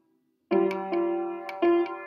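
Upright piano being played: after a brief silence, notes resume about half a second in, several notes and chords struck in quick succession and left ringing.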